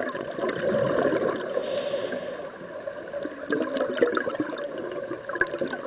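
Scuba breathing heard underwater: a gurgling rush of bubbles from a diver's regulator, uneven in strength, dipping in the middle and swelling again near the end.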